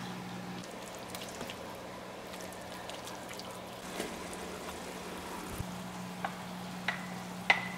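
Browned ground beef mixture sizzling gently in a stainless steel pan as it is stirred, with a steady low hum underneath. A few light clicks, the spoon against the pan, come near the end.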